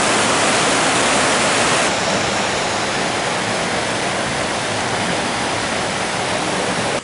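Mountain stream rushing and tumbling over boulders in white-water rapids: a steady, loud roar of water that drops a little in level about two seconds in.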